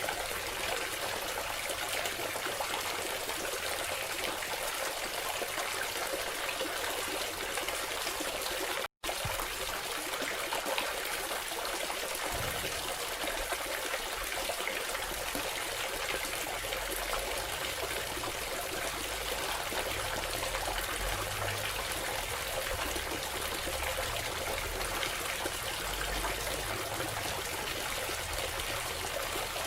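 Water trickling steadily down a cement tabletop waterfall fountain, with a momentary break about nine seconds in.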